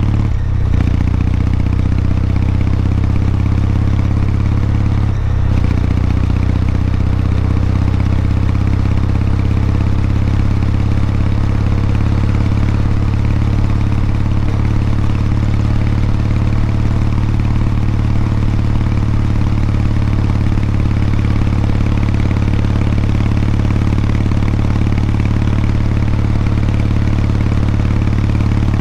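Kawasaki MEGURO K3's air-cooled parallel-twin engine running at steady, unchanging revs.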